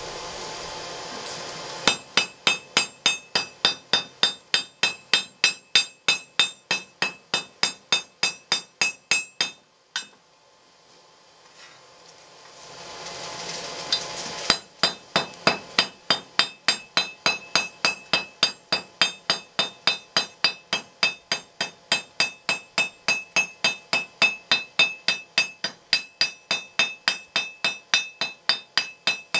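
Blacksmith's hammer striking red-hot steel on an anvil, about three blows a second, each blow ringing sharply: the fork tine of a cooking iron being drawn out. The hammering starts about two seconds in and pauses for a few seconds midway. In the pauses, before each run of blows, a steady rushing of the forge blower is heard.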